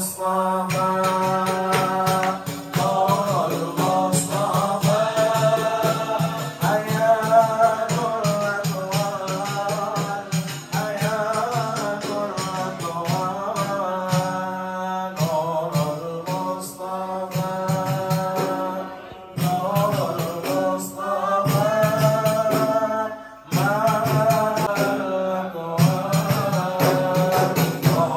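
Male voices singing an Islamic devotional song (sholawat) in a slow, melismatic chant, with a steady beat of hand percussion under it. The singing breaks off briefly between phrases.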